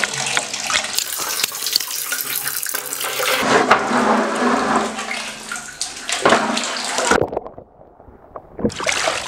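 Water running and splashing into a plastic basin during a bucket bath. About seven seconds in the sound turns muffled and much quieter for about a second and a half, then splashing returns.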